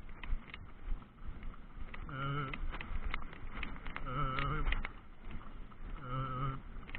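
Horse being ridden: scattered clicks of hooves and tack, with a wavering, pitched groan about half a second long that comes three times, about every two seconds.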